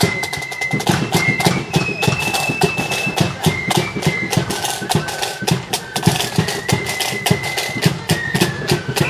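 Marching flute band playing a tune on parade: a high flute melody moving in held notes over fast, crisp snare drumming and bass drum beats.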